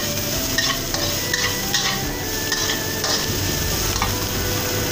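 Chopped garlic, shallots, chili and spring onion sizzling in oil in a wok while a spatula stirs them, with irregular scrapes and taps of the spatula against the pan. The aromatics are being fried until fragrant.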